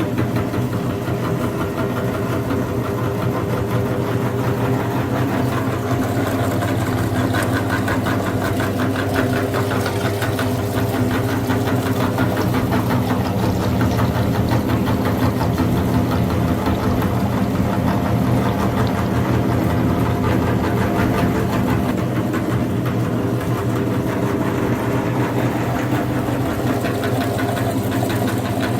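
Electric meat grinder running steadily, its motor humming, with a dense rapid crackle of material being ground.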